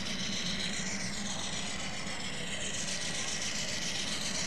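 Steady engine-like rumble running at an even level, with a thin, constant high whine above it.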